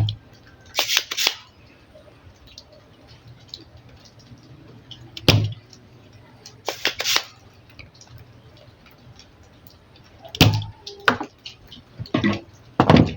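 Small tools clicking and knocking against a bench and circuit board during removal of a power-board MOSFET: scattered sharp clicks, a pair about a second in, a duller knock near the middle, and a quicker run of clicks near the end.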